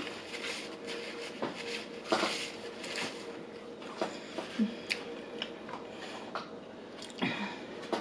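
Close-miked chewing of food: wet mouth sounds with scattered smacks and clicks at irregular intervals, and a brief closed-mouth hum.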